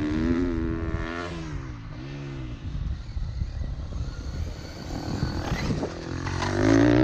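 A motor revving, its pitch rising and falling several times and climbing louder near the end, over scraping, scrabbling noise.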